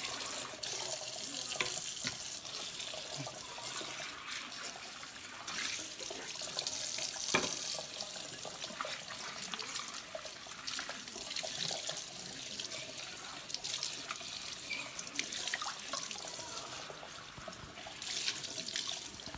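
Kitchen tap running into a sink as steel bowls are rinsed under the stream, with occasional sharp clicks, the sharpest about seven seconds in.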